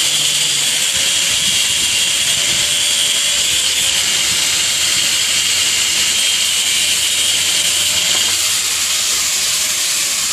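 Handheld electric power tool running at a steady high whine and hiss as it cuts through 1-inch schedule 40 PVC pipe.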